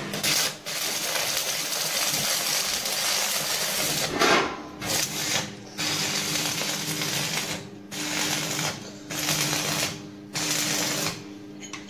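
Electric arc welding on steel: a dense crackling sizzle in about six bursts of a second or two each, with short breaks between them, as tack welds are laid.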